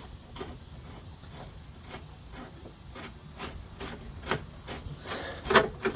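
Light metallic clicks of hand tools, about two to three a second, working a suspension bolt, growing louder with a few sharp metal clinks near the end.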